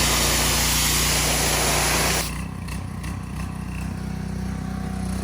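A small engine running steadily at idle. A loud hiss rides over it for about the first two seconds, then cuts off.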